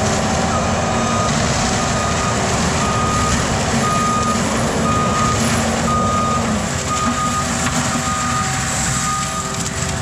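Back-up alarm of an ASV RT-135 compact track loader beeping steadily, about once a second, as the machine reverses, over the steady running of its diesel engine and forestry mulcher head.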